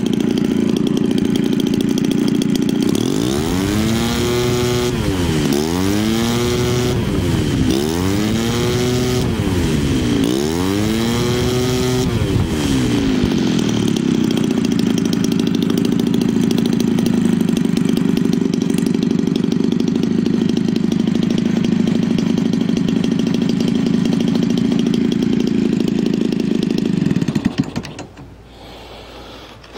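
Homelite 30cc two-stroke engine, converted for an RC airplane and swinging a Master Airscrew 18x6 propeller, on a bench test run. It is revved up and back down four times in quick succession, then runs steadily, and the engine sound cuts off near the end.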